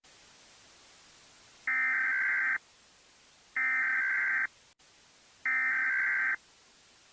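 Emergency Alert System SAME header: three identical bursts of warbling digital data tones, each just under a second long and about two seconds apart, the coded header that opens an emergency alert broadcast.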